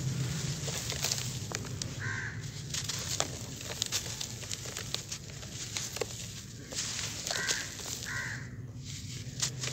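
Dry sand-and-cement balls crushed and crumbled by hand, with grit and powder pouring onto more balls in a plastic basket: a steady hiss of falling grains with scattered crunchy crackles. Three short calls come from the background, about two seconds in and twice near the end.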